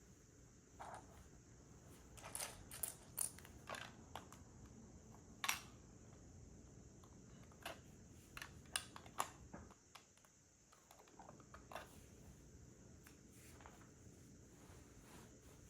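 Plastic LEGO pieces clicking and tapping as they are handled and pressed together: a dozen or so scattered clicks, the sharpest about five and a half seconds in and a quick cluster around nine seconds.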